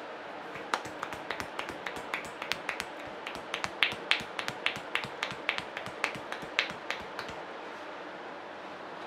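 Barber's hands snapping and clicking rapidly during an Indian head massage: an irregular run of sharp snaps, about five a second, starting just under a second in and stopping about seven seconds in.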